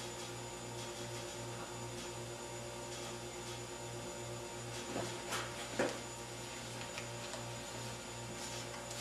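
Steady electrical mains hum in a small room, with a few faint light clicks about five to six seconds in and once more near seven seconds.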